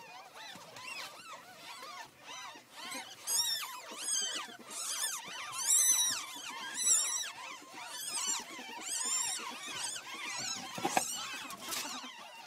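Ferret kits squeaking again and again as they are picked up and handled: short, high-pitched, arching cries, loudest in the middle, with a soft knock near the end.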